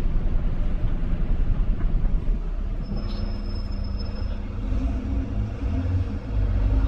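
Train running with a heavy low rumble. About three seconds in, a steady motor hum sets in over the rumble.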